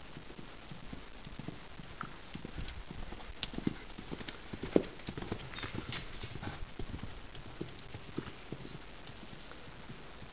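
Hoofbeats of a horse cantering slowly on a sand arena surface: a run of short, dull thuds, loudest a little before the middle as the horse passes close.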